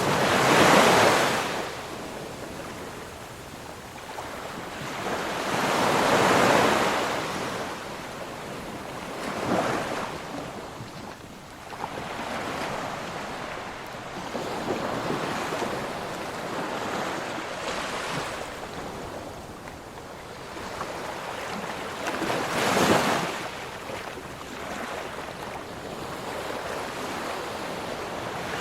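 Ocean waves breaking on a shore, each wave swelling to a loud crash and washing back, about five big breakers with a steady hiss of surf between them.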